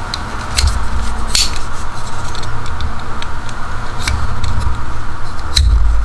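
Stainless-steel multitool being handled, its folding tools clicking as they are swung open and shut: several sharp metallic clicks spread irregularly, some with a dull knock from the handling.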